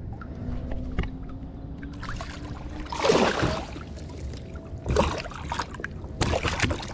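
Water splashing beside a kayak in three short bursts, the loudest about three seconds in, as a hooked bass is brought in at the surface.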